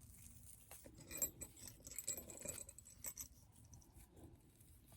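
Faint handling sounds of a pipe cleaner being twisted by hand: light rustling with small clicks, busiest between about one and three seconds in.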